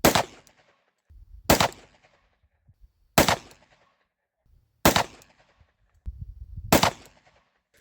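Five shots from a Glock G29 Gen 5 10mm pistol fitted with a KKM barrel, fired with handloaded ammunition, one every one and a half to two seconds. Each report is a sharp crack with a short echo.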